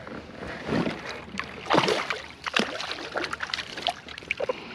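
A small hooked fish splashing and thrashing at the water's surface as it is reeled in to a kayak: a string of irregular sharp splashes, the loudest about two seconds in.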